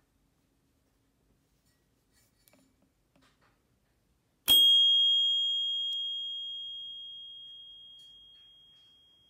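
Bicycle bell struck once, about four and a half seconds in, after a few faint clicks: a single bright, high ring that fades slowly over about five seconds.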